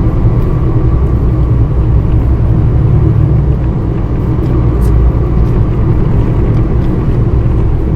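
Truck engine and road noise heard from inside the cab while driving: a steady low drone.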